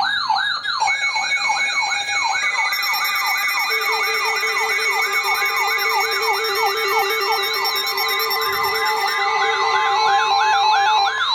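Emergency alert tones from radios playing over one another: a fast siren-like yelp, rising sweeps about three a second, under steady and beeping alert tones, with a steady tone joining about two seconds in.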